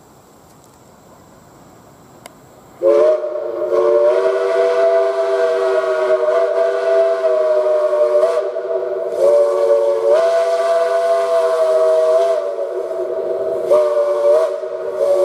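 Steam locomotive's chime whistle blowing, starting about three seconds in: a loud chord of several tones held long, wavering and stepping in pitch with a few short breaks.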